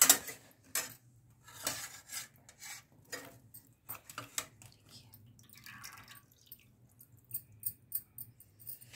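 Scattered light clicks of a steel knife and ladle against a steel pan as bread slices are dipped in sugar syrup, with syrup dripping.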